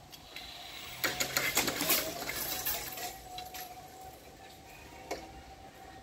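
Level-crossing barrier booms lifting, their hanging metal lattice skirts jangling and clattering for about two seconds. A faint steady tone sounds underneath, and there is a single click near the end.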